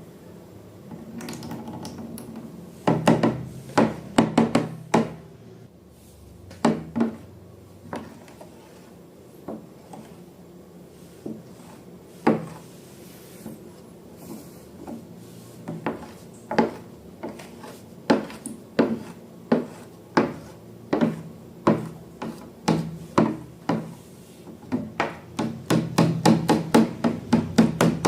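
Slime being worked by hand or with a tool in a container: an irregular run of short sticky clicks and knocks, coming thick and fast in a cluster near the start and again near the end.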